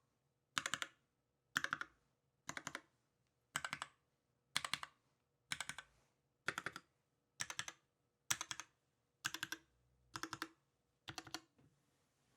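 KIRA EXS custom mechanical keyboard with a brass plate, GMK keycaps and lubed 67g C³ Tangerine linear switches, typed in short bursts: about twelve clusters of three to five quick keystrokes, roughly one cluster a second.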